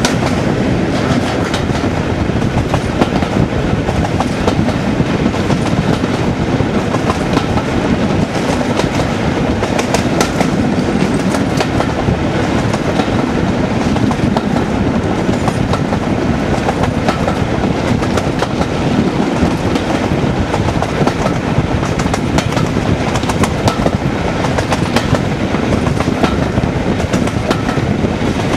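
English Electric Class 37 diesel locomotive 37109, its 12CSVT V12 engine working as it hauls the train, heard from a window of the carriages behind. The wheels clatter over the rail joints, with many short clicks.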